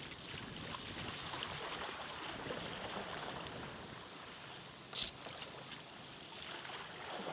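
Water rushing and lapping along the hull of a sailing kayak under way, with one brief sharp slap about five seconds in.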